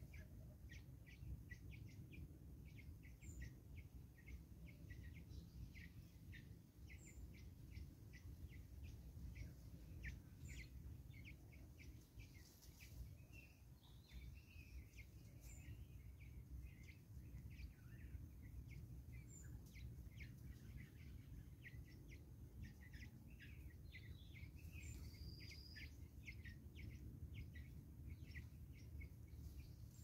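Faint background birdsong: a steady scatter of short, quick chirps, with a thin high note repeating every few seconds, over a low steady rumble.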